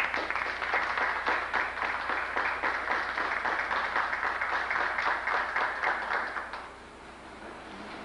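Audience applauding, many hands clapping together, dying away about six and a half seconds in.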